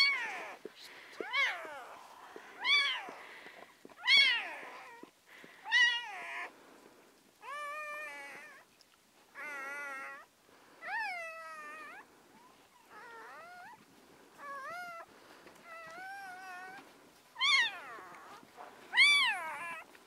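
Newborn Anatolian Shepherd–Kuvasz cross puppy, minutes old, crying with thin, high-pitched squeals. The cries come about one every second and a half, many rising and then falling in pitch, and they are loudest at the start and again near the end.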